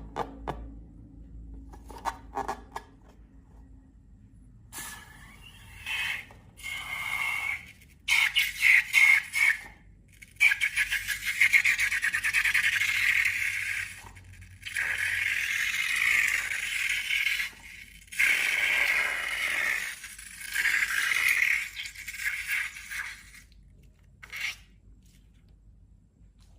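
Slime being worked in a container, with crackly scraping sounds that come in bursts of a few seconds each, separated by short pauses.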